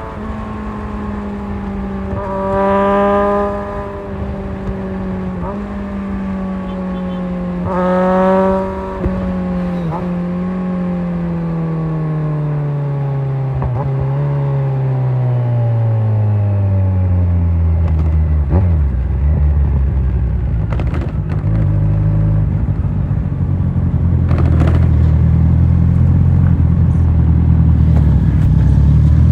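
Kawasaki Z1000 inline-four motorcycle engine on the move: a steady engine note with two short louder surges a few seconds apart, then the pitch falls steadily over about eight seconds as the bike slows, settling into a low steady note.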